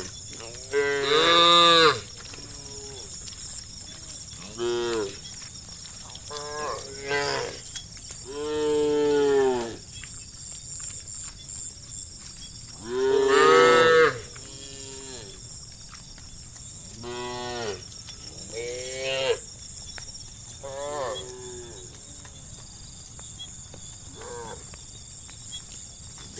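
Several cows mooing, calling to one another, about nine calls a few seconds apart. Some are short and some long, and the loudest come about a second in and around thirteen seconds in.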